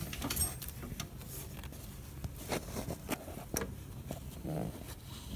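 Scattered light clicks and brief rustles of handling, over a faint steady low hum.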